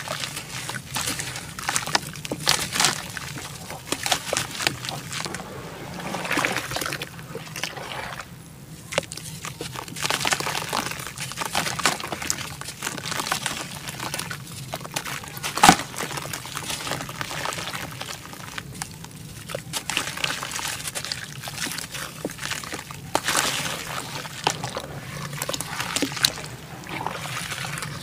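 Hands crumbling a lump of dry red dirt into a tub of water, the crumbs splashing and trickling in, then sloshing and squeezing the muddy water, with uneven crackles and splashes. One sharp crack, a little past halfway, is the loudest sound.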